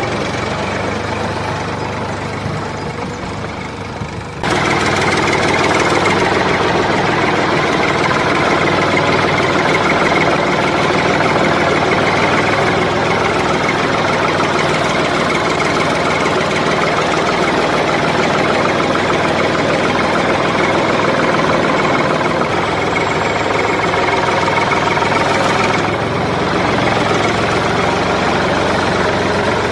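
Engine running steadily at idle, jumping suddenly to a louder, fuller run about four and a half seconds in and holding there.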